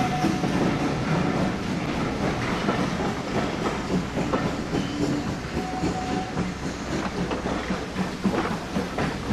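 Train running along the track: a steady rumble of wheels on rail, with scattered clicks as the wheels pass over rail joints.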